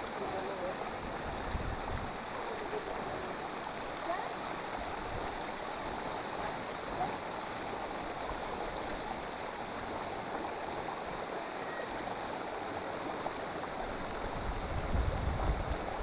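Tall, narrow waterfall, about 100 m high, falling into a rocky pool: a steady hiss of falling and splashing water.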